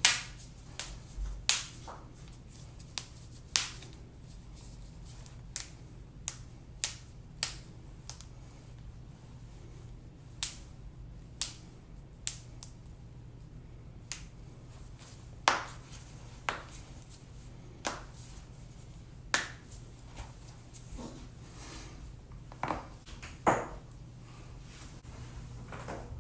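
Human joints cracking and popping: about twenty sharp single cracks at irregular intervals, over a faint steady low hum.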